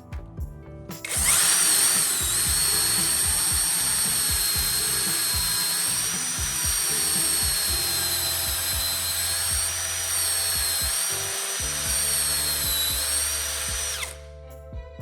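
Electric power tool starts about a second in and runs steadily for about thirteen seconds, then stops. Its high whine dips in pitch as it is loaded and recovers, over background music.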